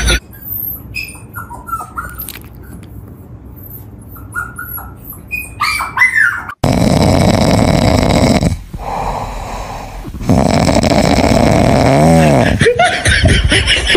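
A sleeping puppy snoring, in long, loud breaths of about two seconds each with a short pause between, in the second half. Before that the sound is quiet, with only a few faint short chirps.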